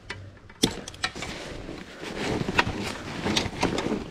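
Gear being packed into a tank bag/rucksack: rustling with a run of sharp clicks and knocks, busier in the second half.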